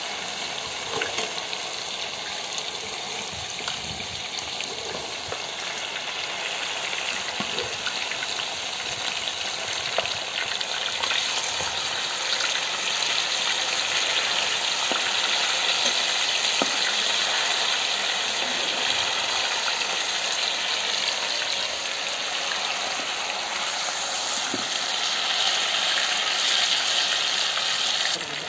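Masala-coated fish frying in hot oil in a pot, a steady sizzling hiss that gets louder about ten seconds in, with a few light clicks.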